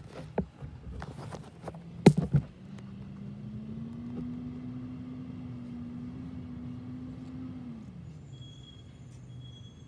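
A few sharp knocks near the start, the loudest about two seconds in, as the phone is handled and set down on the pavement. Then a recycling truck's diesel engine idling, rising in pitch about two and a half seconds in, holding there, and dropping back to idle near the end.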